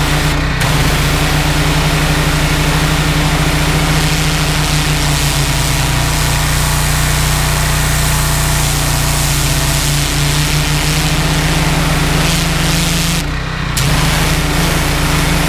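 Honda GX390 petrol engine running steadily, driving a belt-driven pressure washer pump, with a steady hiss over it. About thirteen seconds in the hiss drops out briefly and the engine note dips, then both pick up again.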